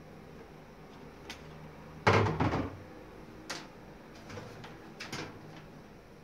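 Hard plastic computer case front cover being handled while the power button is unscrewed: one loud knock and rattle about two seconds in, then a few light clicks.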